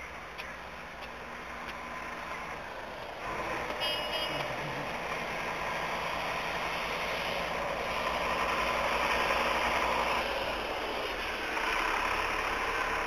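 City street traffic noise: a steady hiss and rumble of road vehicles, with a short electronic beeping about four seconds in. The sound jumps abruptly in level a few times.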